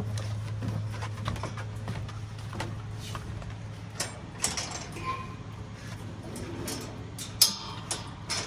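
Metal clanks and rattles of a wire dog kennel's panels and gate being handled and shut, with the loudest sharp clank about seven and a half seconds in. A steady low hum runs underneath.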